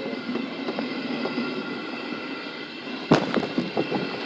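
A single sharp bang about three seconds in, followed by a few lighter clicks and knocks, over a steady mechanical hum.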